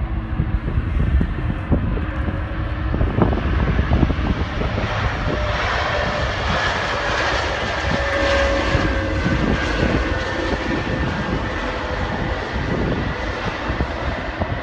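Airbus A330 airliner's jet engines running as it rolls along the runway: a steady, loud engine noise with a whining tone that is strongest in the middle.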